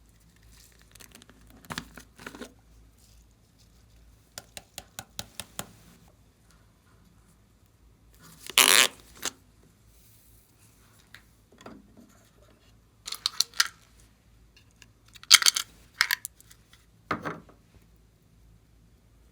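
Glossy slime being worked by hand, giving sticky clicks, pops and squelches in separate bursts. A quick run of small clicks comes a few seconds in, and louder squishes follow later.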